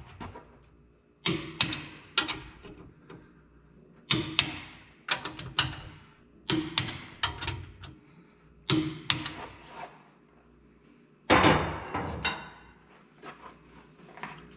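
Hand-tool work on a 12-bolt Chevy rear differential: sharp metallic clanks and clicks from a ratchet wrench on the housing and bolts, coming in short clusters with pauses between. A longer ringing clank comes about 11 seconds in.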